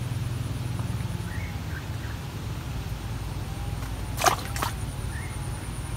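Two sharp clicks from hands handling the fishing poles and tackle, close together about four seconds in. Under them are a steady low outdoor rumble and a few faint bird chirps.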